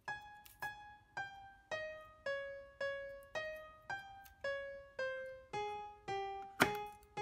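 Background music: a piano playing a slow line of single notes, about two a second, each note fading before the next. Near the end there is one sharp click.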